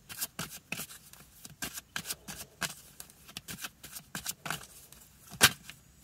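A deck of oracle cards being shuffled by hand: a run of quick, irregular card flicks and riffles, with one sharper snap about five and a half seconds in.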